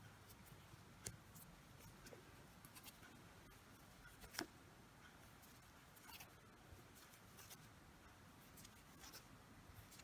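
Faint scratchy clicks and rubbing of a crochet hook drawing yarn through single crochet stitches, with one sharper click about four and a half seconds in.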